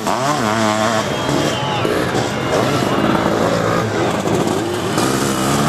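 Racing sidecar motocross outfits' engines revving hard, several at once, their pitch swooping up and down with the throttle in the first second and then running on more steadily.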